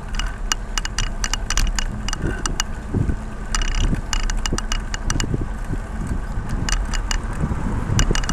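A bicycle being ridden: sharp, irregular clicking and rattling over a steady low rumble of wind on the microphone.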